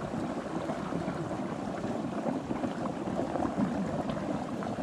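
Steady gurgling and splashing of water around a lift net being lowered into a shallow pond.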